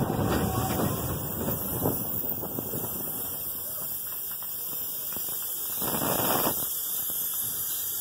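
Ride noise from a mine-train roller coaster: the cars rattling along the track with wind on the microphone. It is loudest at the start, eases off, and surges briefly about six seconds in.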